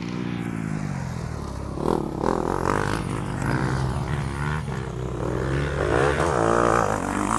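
Motocross bike engine revving up and down as the rider works the throttle through a rutted dirt corner, loudest near the end as it accelerates away.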